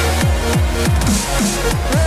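Electronic dance music with a sustained deep bass line and repeated deep kick hits that drop in pitch, several a second.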